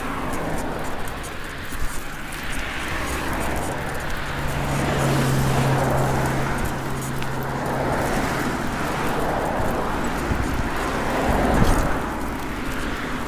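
Road traffic: cars passing close by on an asphalt road, their tyre and engine noise swelling and fading as each goes by, with a steady low hum for a few seconds in the middle.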